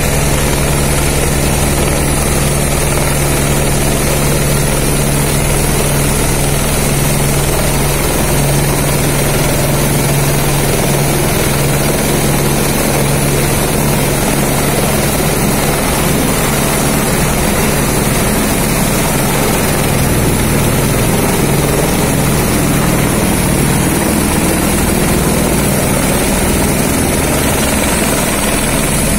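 Airbus H125 (AS350 Écureuil) helicopter hovering close overhead during long-line work. Its rotor blades make a steady fast beat under the single turboshaft's constant high whine.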